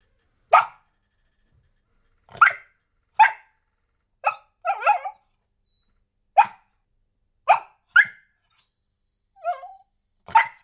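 Dachshunds barking: about nine short, sharp single barks at uneven intervals, with a softer, whining yip about nine and a half seconds in.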